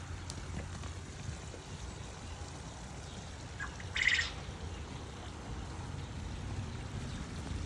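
A single short, high chirp about four seconds in, like a bird call, over a steady low rumble.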